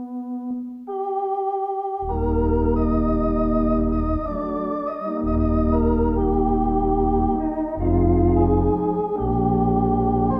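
Theatre organ playing a silent-film accompaniment with a wavering tremulant: a light held chord, then about two seconds in a deep pedal bass comes in under full chords that change every second or two.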